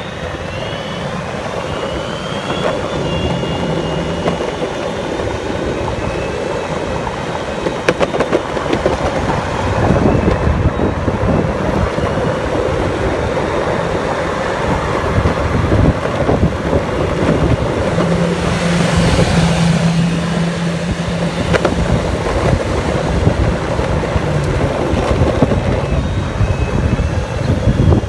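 Wind rushing over the microphone and road noise while riding a bike along a city street, with traffic running alongside. A steady low hum rises for a few seconds about two-thirds of the way through.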